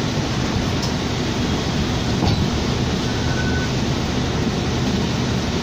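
Cabin noise of a 2007 New Flyer D40LFR diesel city bus under way: steady engine drone and road noise heard from inside, with a short faint high tone about three seconds in.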